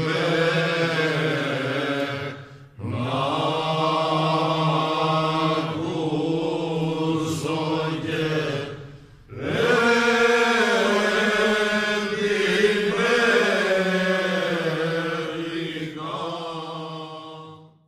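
Men's voices singing a Cretan rizitiko song a cappella, in long drawn-out phrases over a steady held low note. The singing breaks off briefly twice, about three and nine seconds in, and fades out at the end of the song.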